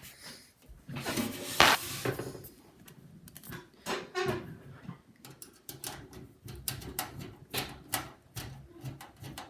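Light, irregular clicking and tapping, coming about two or three times a second in the second half, with one louder scraping rustle about a second and a half in.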